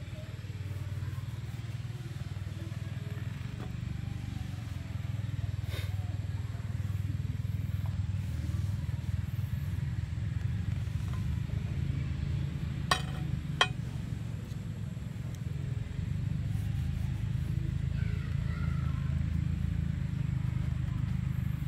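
A steady low rumble, like a motor running, throughout. Two sharp clicks come close together a little past the middle.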